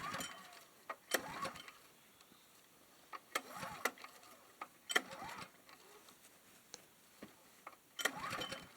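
Recoil pull-starter of an older Falkenburg pressure washer's small gasoline engine, pulled several times, each pull a short whirring sweep, with the engine cranking but never catching: its ignition switch is still off.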